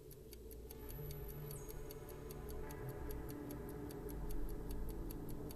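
Countdown-timer clock ticking with quick, even ticks over a quiet sustained music bed.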